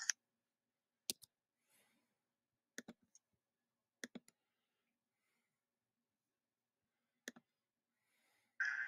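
A handful of sharp computer clicks, a second or more apart, with near silence between them. Near the end, room noise comes in as a video starts playing.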